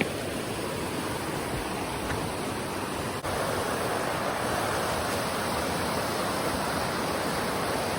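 A river rushing, a steady noise of flowing water. There is a brief break about three seconds in, after which it is a little louder.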